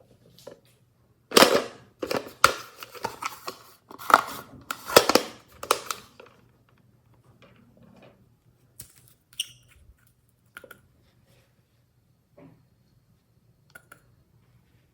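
Glossy slime being pressed and pulled by hand, giving a dense run of sharp crackles and pops for several seconds, then a few scattered single pops.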